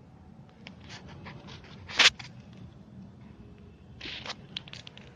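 Scattered rustling and scraping, with one sharp, loud scrape about two seconds in and another burst of rustling near four seconds.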